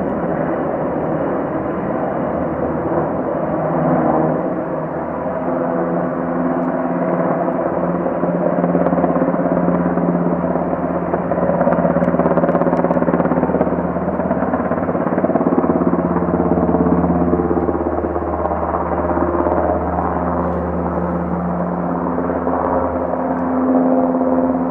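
Background music of sustained synthesizer-like chords that change pitch every few seconds, over a steady noise.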